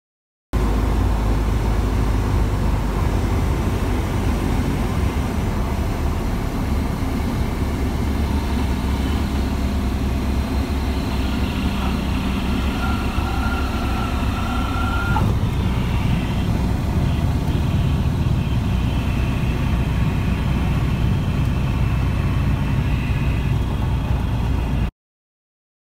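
Cessna 172's engine and propeller running at low power, heard from inside the cockpit while landing. About halfway through a steady high tone sounds for some three seconds, the stall warning horn in the flare, ending at a knock as the wheels touch down; after that the low rumble of rolling along the runway carries on.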